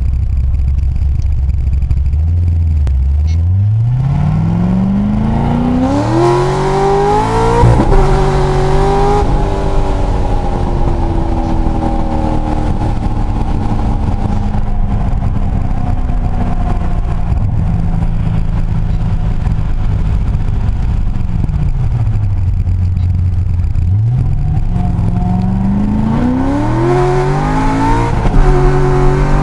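Modified 2006 Corvette Z06's 7.0-litre LS7 V8, with a stage II cam, long-tube headers, catless X-pipe and muffler mod, heard from inside the cabin. It starts as a low rumble, then rises steeply in pitch under hard acceleration, drops briefly at an upshift about eight seconds in, and falls away to a steady cruise. A second hard pull begins about 24 seconds in, with another shift near the end.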